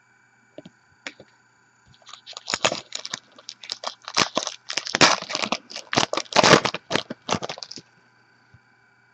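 Crinkly plastic or foil packaging crackling in dense, irregular bursts as trading cards are handled. It starts about two seconds in and stops shortly before the end.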